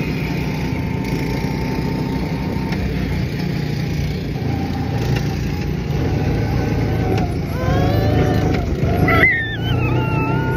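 Wind rush and engine and road noise from riding in an open-top car on the move. A child squeals and yells with rising and falling pitch about eight to ten seconds in.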